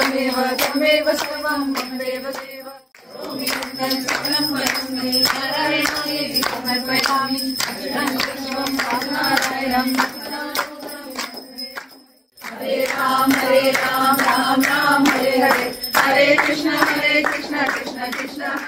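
A group of women singing a Hindu aarti together, with steady rhythmic hand-clapping keeping the beat. The singing and clapping break off briefly twice.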